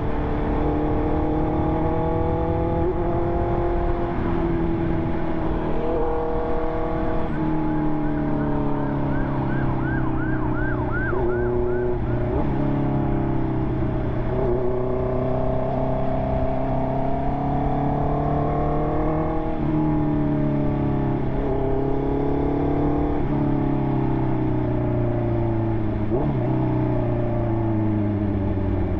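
Honda CB650R inline-four engine running through an SC Project exhaust while riding. The engine note climbs and falls with the throttle and drops in steps at several gear changes. From about 8 to 12 seconds in, a high warbling tone repeats about twice a second over it.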